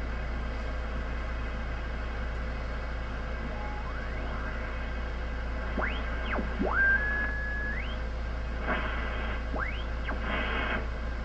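Yaesu HF transceiver's receiver audio on the 10-metre band as the tuning knob is turned through signals: a steady static hiss with a low hum, crossed by whistling tones that sweep up and down in pitch, one of them held for about a second. Near the end come two short bursts of a garbled, off-tune signal.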